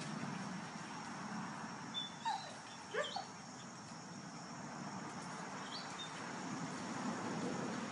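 Dogs playing, giving a few short yips and whimpers, mostly about two to three seconds in, with one fainter one near the end, over a steady background hiss.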